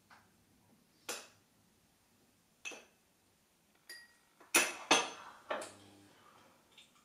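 A spoon clinking against a small cup as flour and cream are stirred together to thicken a sauce. A string of separate clinks, the loudest two close together about four and a half seconds in.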